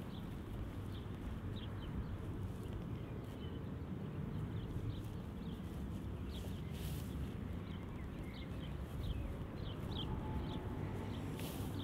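Small birds chirping now and then with short high calls, over a steady low outdoor rumble.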